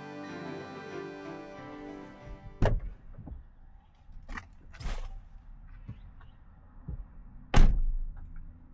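Background music ends about two and a half seconds in, followed by a handful of separate thuds and knocks over a quiet background, the loudest near the end.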